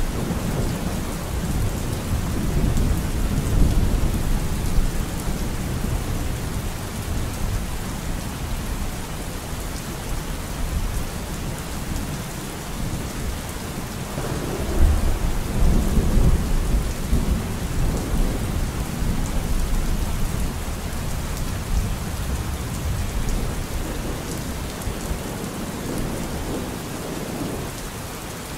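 Steady rain with rolling thunder. A rumble fades over the first few seconds, a new peal breaks sharply about halfway through and rolls off slowly, and fainter rumbling swells again near the end.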